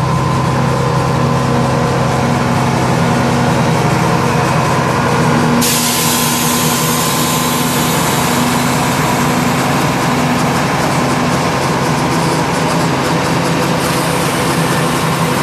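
Mack E7 12-litre inline-six turbo diesel idling steadily. About six seconds in, a steady hiss cuts in and carries on over the engine.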